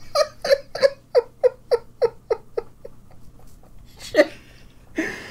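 A person laughing hard in a run of short, high-pitched bursts, about three a second, that trails off after about two and a half seconds, with another laugh near the end.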